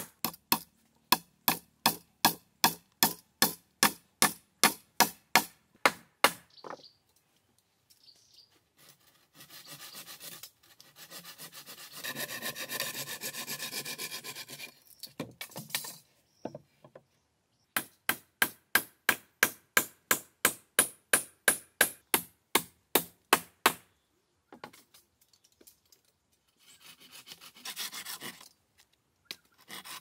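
Hand saw cutting wood in quick, even strokes, about two or three a second, in runs of several seconds with pauses between. Around the middle there is a longer stretch of continuous rasping instead of separate strokes.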